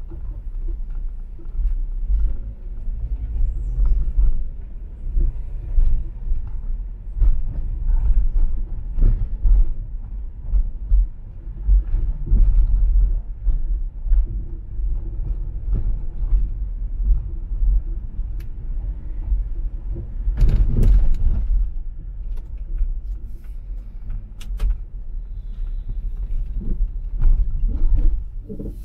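Car driving through streets: a steady low road rumble with frequent short knocks and rattles, swelling louder about twenty seconds in.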